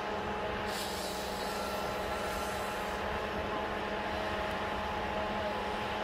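Heavy diesel forestry machine running steadily under load, with a hiss about a second in lasting some two seconds.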